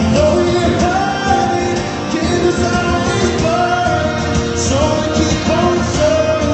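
A live song heard from the audience on a phone: a singer sings a melodic line over guitar accompaniment.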